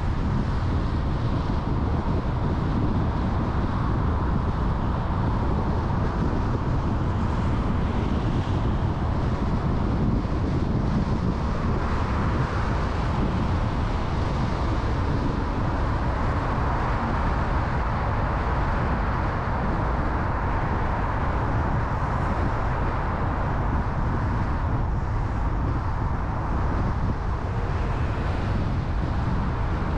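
Steady outdoor street ambience dominated by a low rumble: wind buffeting the microphone, with traffic noise underneath.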